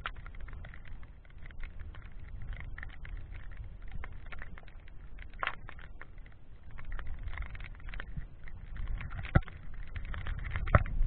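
Low, uneven rumble of wind on the microphone with many small clicks, and two sharp knocks near the end.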